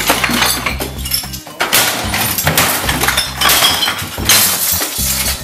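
Things being smashed in a room: repeated crashes, breaking glass and clinking debris, one blow after another.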